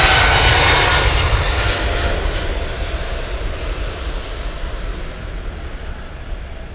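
Jet airliner engines at takeoff power passing and fading steadily as the plane climbs away, leaving a low rumble.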